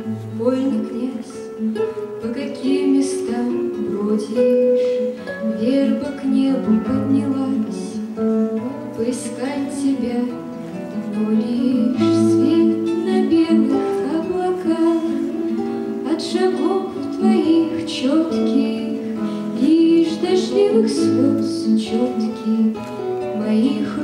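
A bard song: a young woman singing to her own classical (nylon-string) guitar, with picked and strummed chords over a bass note that returns every few seconds.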